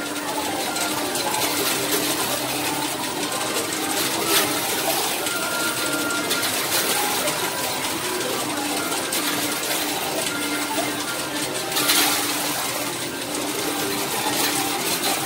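Metal tokens clattering and clinking in a coin pusher arcade machine, a continuous jangle of coins dropping and sliding, with louder bursts of clinking about four seconds in and again about twelve seconds in.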